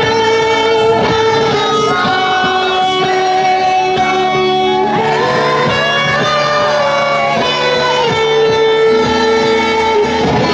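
Live band playing, with an electric guitar lead holding long sustained notes that bend in pitch over the full band backing, no vocals.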